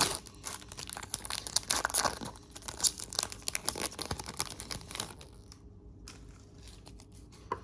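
An NBA Hoops 2022-23 hobby pack's wrapper being torn open and crumpled. It crinkles and crackles densely for about five seconds, then dies down.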